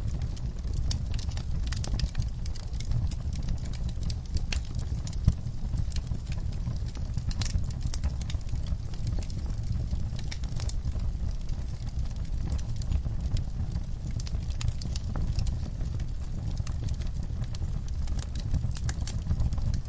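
Wood fire crackling: frequent sharp pops and snaps over a steady low rumble, with one louder pop about five seconds in.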